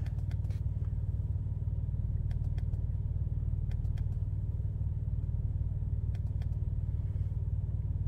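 A 2018 Ford F-150 idling, a steady low rumble heard inside the cab. A few faint computer clicks sound over it.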